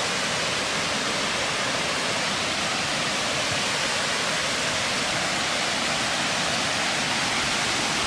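Waterfall cascading down a rocky creek: a steady, unbroken rush of falling water.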